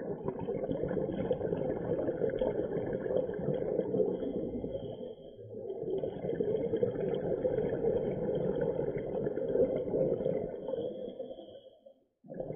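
Muffled underwater rumble of a scuba diver's exhaled bubbles streaming from the regulator. It comes in two long stretches, with a short lull about halfway through and a drop almost to silence near the end, the pauses of the breathing cycle.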